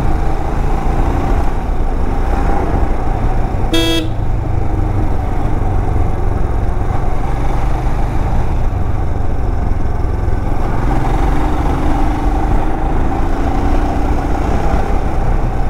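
Royal Enfield Himalayan 411 motorcycle riding at steady speed, its single-cylinder engine and wind making a constant low rumble, with one short horn toot about four seconds in.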